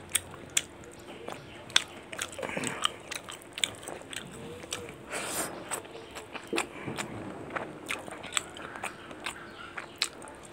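A person eating close to the microphone: chewing, biting and crunching food, heard as an irregular run of sharp wet clicks and smacks.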